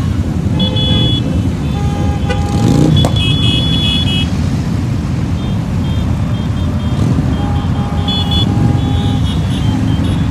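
Many motorcycle engines running together in a steady low rumble, one revved about two and a half seconds in, with short horn toots sounding on and off.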